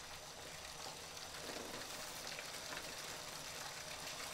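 Sheets of paper rustling and crinkling as they are leafed through, over a steady faint hiss.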